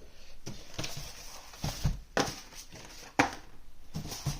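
Cardboard packaging being handled and opened: rustling with several sharp knocks as small boxes are set down and moved.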